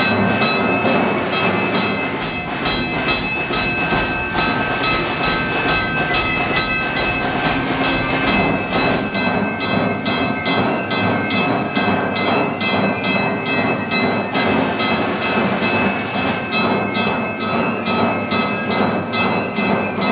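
A mechanical automated orchestra machine playing: drums and cymbals strike a steady, even beat under several held pitched notes.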